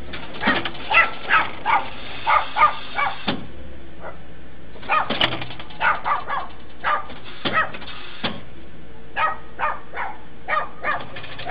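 A dog barking over and over: runs of short barks with brief pauses, over a faint low steady hum.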